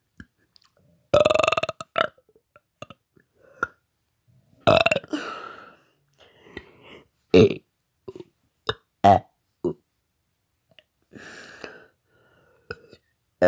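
A man burping repeatedly on purpose: two long, loud burps, then a quick string of short ones, with fainter sounds between.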